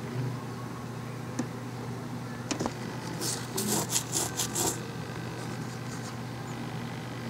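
A steady low hum, with a quick run of about half a dozen dry, rasping scratches about three seconds in, lasting under two seconds.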